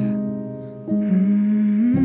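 Small jazz band playing a slow ballad in held notes; the sound thins out briefly, then a new held note comes in about a second in.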